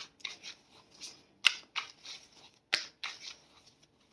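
Tarot cards being shuffled and handled: three sharp snaps, about a second and a half apart, with short papery swishes between them.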